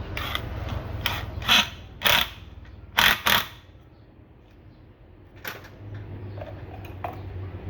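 Tools and metal parts being handled: a series of short, sharp clacks and scrapes, loudest in the first half, over a low steady hum.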